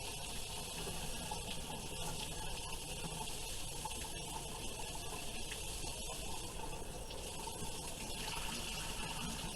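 Faucet water running steadily while a child's hair is being washed under it.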